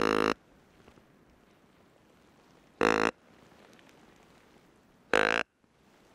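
Tube deer grunt call blown three times in short grunts about two and a half seconds apart, imitating a whitetail buck's grunt to draw deer in.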